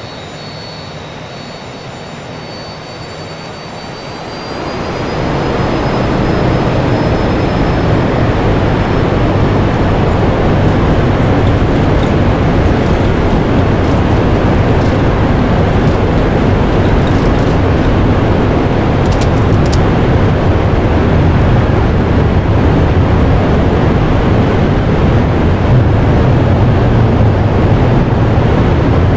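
Jet engine running with a high turbine whine that rises slightly. About five seconds in, it powers up to a much louder, steady rush that holds.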